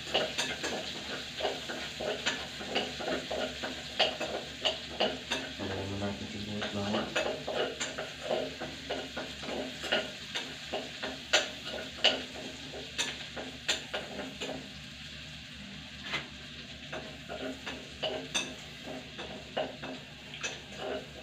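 Metal spoon stirring and scraping rice and meat in a stainless steel pot, with many sharp clinks against the pot's sides over a steady light sizzle.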